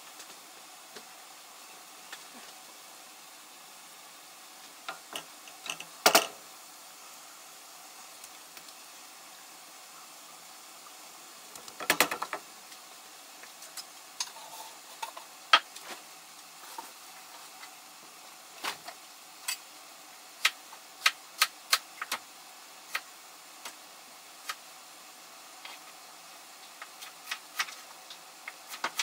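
Pans of vegetables and meat sizzling softly on the stove, with a clatter of a utensil against a pan about six and twelve seconds in. Through the second half come sharp, separate knocks, roughly one a second, from a knife on a cutting board at the counter.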